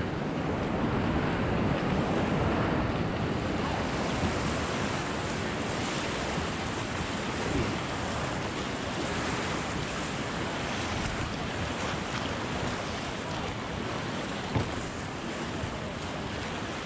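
Whitewater rapids rushing around a raft as it runs through them. The rush eases gradually as the raft comes into calmer water, with a brief thump about fourteen and a half seconds in.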